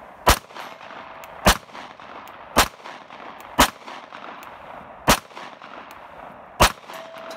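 Glock 19X 9mm pistol firing six single shots, spaced about one to one and a half seconds apart.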